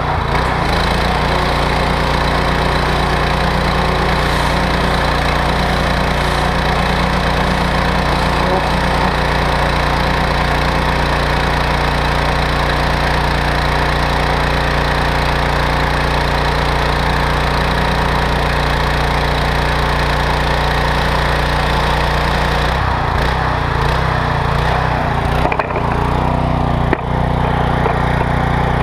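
Petrol pressure washer's 14 hp 420cc Loncin G420 single-cylinder engine running steadily under load, driving the triplex pump with the water jet hissing. Its note changes about three-quarters of the way through, followed by a sharp click shortly after.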